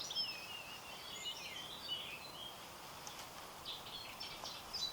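Small birds chirping and warbling over faint outdoor background noise, the calls thickest in the first two seconds and picking up again near the end.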